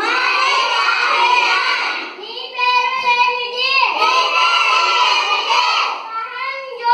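A group of young schoolchildren singing together in unison, line by line, with a short break about two seconds in.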